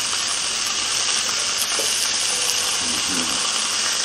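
Steady sizzling of a T-bone steak, cassava balls and yellow pepper strips frying on an open electric contact grill.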